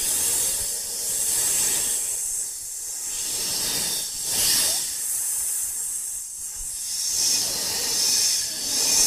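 A continuous hiss, strongest in the high range, swelling and easing every second or two.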